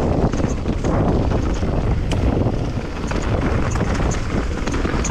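Specialized Levo e-mountain bike riding down a dirt forest trail: wind buffeting the microphone over the rolling of the tyres, with scattered small knocks and rattles from the bike over the rough ground.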